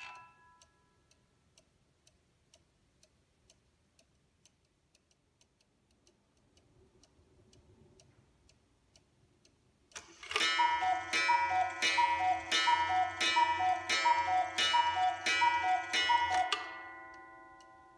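August Schwer mechanical Black Forest cuckoo clock: the last notes of its music box fade, then the clock ticks faintly about twice a second. About ten seconds in it strikes nine o'clock: the two-note cuckoo call sounds nine times, each with a gong strike, and the gong rings down afterwards.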